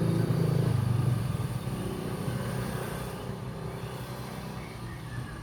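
A motor vehicle engine running, loudest about a second in and then fading away.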